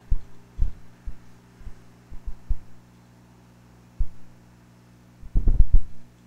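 Irregular dull low thumps picked up by a desk microphone over a steady electrical hum. The loudest is a quick run of thumps about five and a half seconds in.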